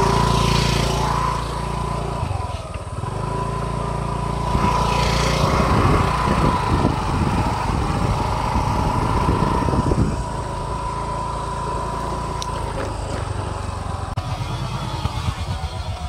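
TVS Jupiter scooter's single-cylinder engine running as it is ridden over a rough dirt and gravel track, with a steady whine and a rougher, uneven rumble from about five to ten seconds in.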